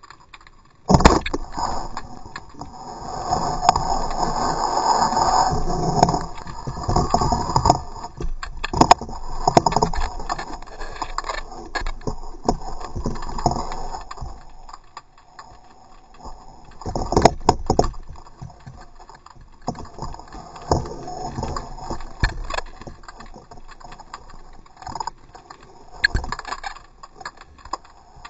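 Underwater sound through a camera housing: a sharp knock about a second in, then irregular rattling, scraping and clicking as a speared sheepshead struggles on the spear shaft and is handled.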